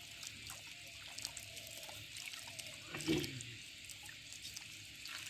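Water trickling and dripping, with small splashes and scattered clicks, as a bamboo-framed fishing net is worked through shallow, muddy water.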